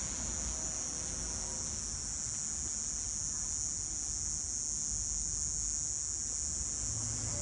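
Cicadas droning steadily, a continuous high-pitched buzz.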